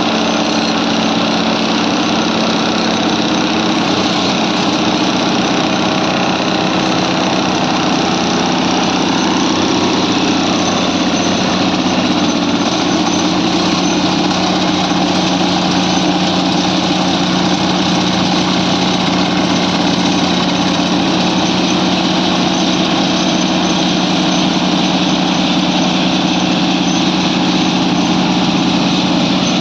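DTS-30 dynamic track stabiliser running on the rail: a loud, steady machine drone from its diesel engine and vibrating stabilising units, with a constant low hum and a hiss-like band above it.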